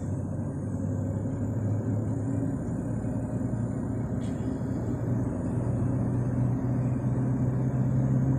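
Steady engine hum and road rumble heard from inside a moving vehicle, the engine note rising slightly about five seconds in.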